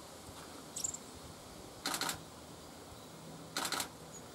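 A few short bursts of clicking over a low steady background: a faint high click about a second in, then two rattly clusters of clicks about a second and a half apart.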